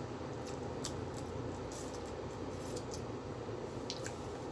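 Eating and food-handling noises: a handful of short, light clicks as food is picked from plastic takeaway containers by hand, over a steady background hum.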